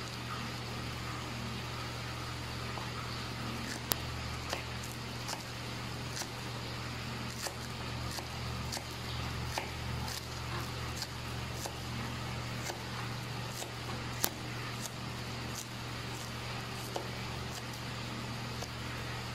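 Steady low appliance hum, with scattered light clicks and taps from hands handling fried chicken pieces on a paper-lined plate.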